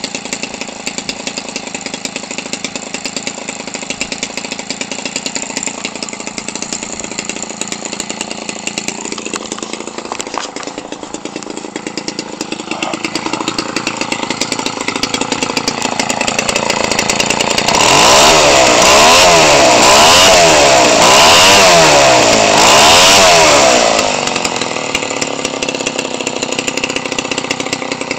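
Homelite 25cc two-stroke engine, converted for RC airplane use, turning an 18x6 propeller. It runs steadily at low throttle, then is opened up over several seconds to a loud full-throttle run with a wavering pitch, and drops back to a lower speed about six seconds later. It runs cleanly, its stock carburetor dialed in.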